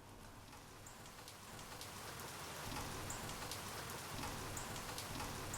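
Rain-like hiss with many scattered drop ticks, fading in and growing louder over the first three seconds, then holding steady.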